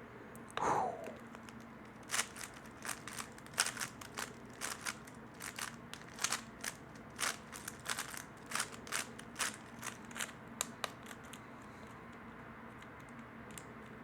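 3x3 speedcube being turned by hand during a solve: a run of quick plastic clicks and clacks, several a second, for about nine seconds before it stops. A short swishing sound comes just before the turning starts.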